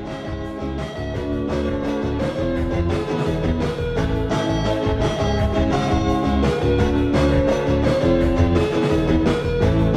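Background music with a steady beat, bass and pitched notes, growing louder over the first two seconds.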